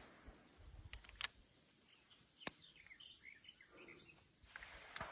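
Faint bird chirps over quiet outdoor air, broken by four short sharp cracks, the loudest about two and a half seconds in.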